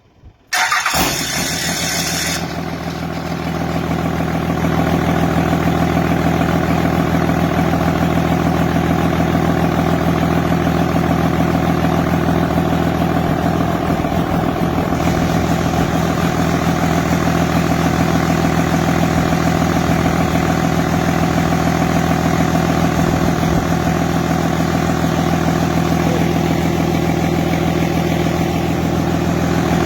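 Freshly rebuilt Cummins 5.9 L 24-valve inline-six diesel starting about half a second in. It runs rough and loud for the first couple of seconds, then settles into a steady idle on its first start after the rebuild, bored 0.020" over with oversize pistons.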